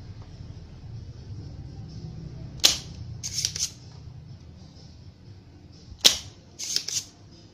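Spring-loaded desoldering pump firing twice with a sharp snap, about three and a half seconds apart, each snap followed by a short cluster of smaller clicks from the tool.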